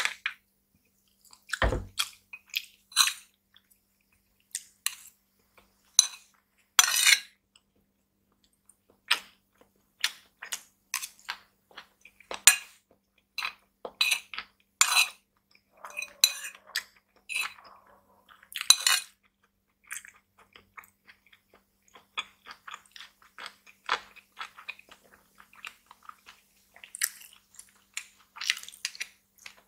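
Metal spoon clinking and scraping against a ceramic bowl in short, sharp strokes, with close-up chewing of food. There is a dull thud about two seconds in.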